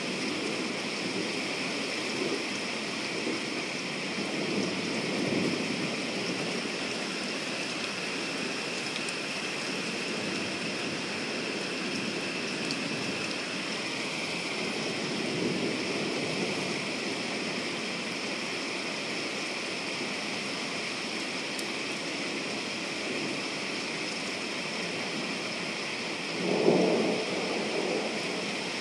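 Steady rain falling through the night, with low rumbles of thunder swelling a couple of times and a sudden, louder burst of thunder near the end.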